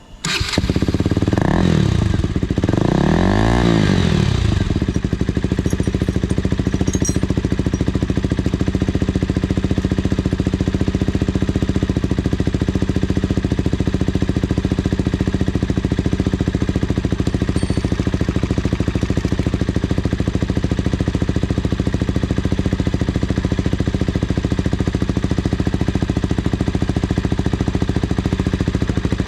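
KTM Duke 200's single-cylinder engine, breathing through an aftermarket Akrapovic exhaust, is blipped twice, rising and falling in pitch. It then settles into a steady, pulsing idle.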